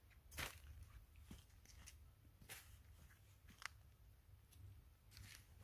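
Near silence, with faint scattered clicks and rustles roughly a second apart over a low rumble.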